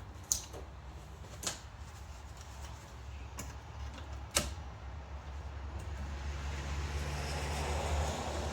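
A few sharp, separate clicks and knocks from handling gear, over a steady low hum, with a hiss slowly building in the last few seconds.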